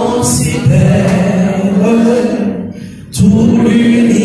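A congregation of men and women singing a worship song together, unaccompanied, with a short break between phrases near three seconds in.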